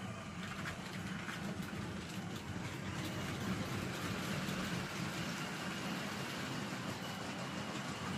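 Brick-built model MaK DE 1024 locomotive with a Powered Up L-motor in its bogie, running steadily while hauling a long freight train over plastic track: a continuous motor-and-gear hum with wheels rolling and faint clicks. The locomotive is coping with the load without trouble.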